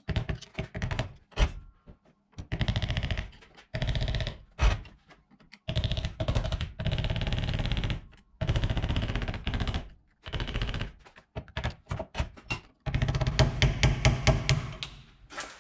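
Hammer driving a screwdriver against the cap on a seized brake-caliper slide pin, metal on metal: single knocks and long runs of rapid taps to knock the cap off.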